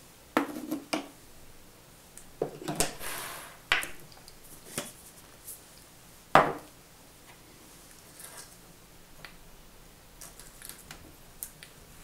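Metal coffee tin and utensils handled on a countertop: a few clinks, a short rattling scrape, and one loud metallic clank a little after six seconds in, then only light taps.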